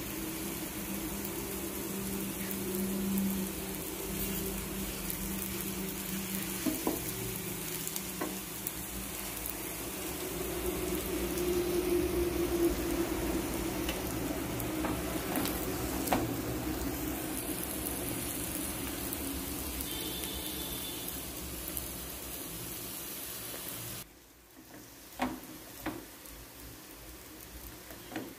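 Oil sizzling steadily under a ragi roti frying on a hot flat griddle (tawa), just after it has been flipped and oiled. The sizzle drops away suddenly near the end, leaving a few light knocks.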